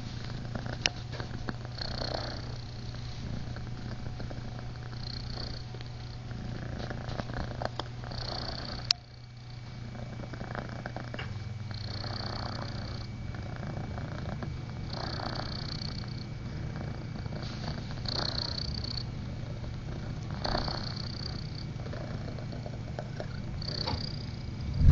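Domestic cat purring steadily close to the microphone, the purr swelling with each breath, with a brief pause about nine seconds in.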